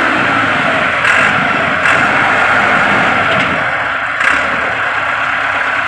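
Heavy diesel truck engine running steadily under load while the truck pulling the loaded trailer is stuck, with a few brief knocks.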